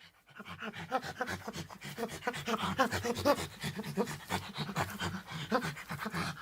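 An animal making quick, short breaths or sounds, several to the second, starting about a quarter second in.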